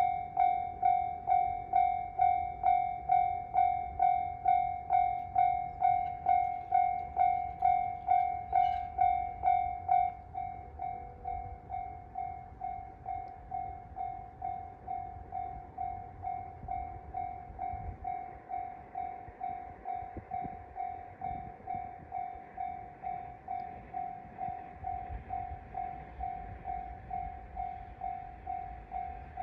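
Japanese railway level-crossing alarm bell ringing, a steady electronic tone repeating about twice a second. It drops sharply in volume about ten seconds in and keeps ringing more quietly, with a low rumble underneath.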